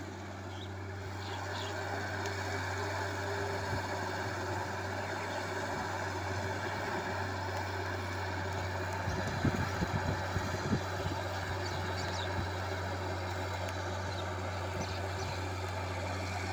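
Excavator diesel engine running with a steady low hum, and a few low irregular thumps about halfway through.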